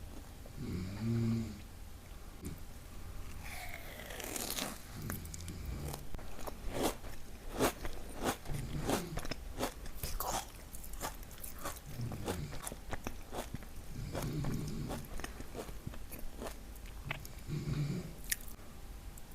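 Crisp crunching bites and chewing of a Dubai chewy cookie, thickest through the middle, over a man's low snoring that comes back about every three seconds.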